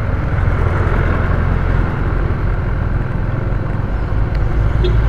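A motorcycle riding along a road, its engine and the road noise steady, heard from a handlebar-mounted camera, with two faint clicks near the end.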